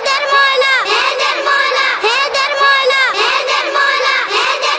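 Children singing a manqabat, an Urdu devotional song, in high voices, with melodic phrases that rise and fall in repeated arcs.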